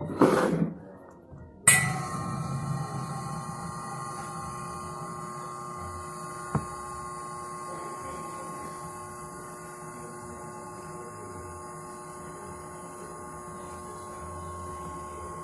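Hat steamer running: a steady hum and hiss of steam with several constant tones, starting abruptly about two seconds in after a short burst of noise at the very start. One sharp click about six and a half seconds in.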